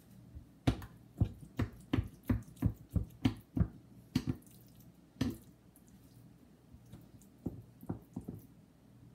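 Kitchen knife chopping raw tuna into negitoro mince on a plastic cutting board: about nine quick chops at roughly three a second, two more slower ones, then three lighter taps near the end.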